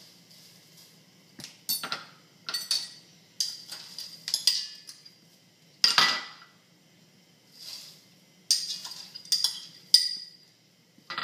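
Irregular clinks and scrapes of a metal spoon against small glass bowls and the rim of a stainless steel soup pot as frozen peas and corn are scooped and tipped into the pot, the loudest clink about six seconds in.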